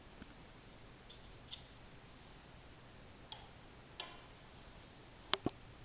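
A few faint ticks of fingers handling a needle and a foil-capped glass test tube, then two sharper clicks close together near the end.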